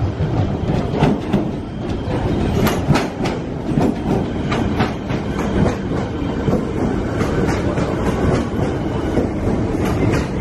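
Siemens Nexus electric suburban train running past close by along the platform: a steady rumble with the wheels clicking sharply and irregularly over the rail joints.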